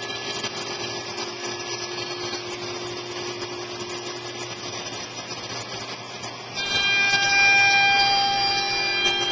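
CNC router spindle running with steady whining tones while its bit cuts 19 mm veneered wood. About six and a half seconds in, it grows clearly louder with sharper, higher whining tones.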